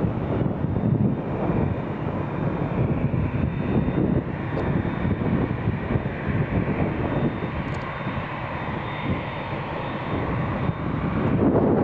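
Boeing 787-8 Dreamliner's turbofan engines running at taxi power as the airliner taxis: a steady rush with a thin, steady high whine over it.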